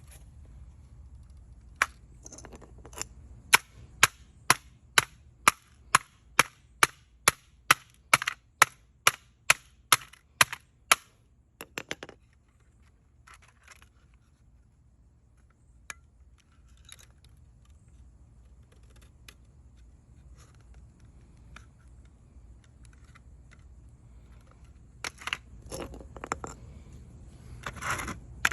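A hammer striking a plastic smoke alarm housing over and over, sharp blows about two a second for roughly nine seconds. Then faint scattered clicks, and another short flurry of blows near the end.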